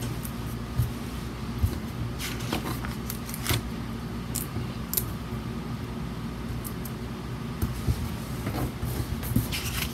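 Planner sticker sheet handled and slid on a tabletop under the fingers, giving a few short, light rustles and scratches, mostly in the middle and again near the end, over a steady low room hum.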